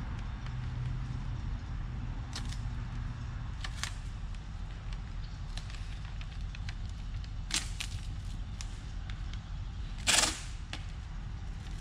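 Masking tape and paper being pressed and pulled over a windshield opening: a few short crackles and tears, the longest and loudest about ten seconds in, over a steady low hum.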